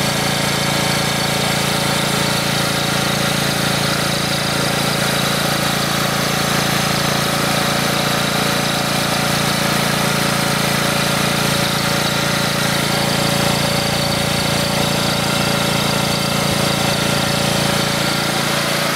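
Small gasoline generator engine running steadily at constant speed, with hydrogen added to its intake and its exhaust gases recirculated.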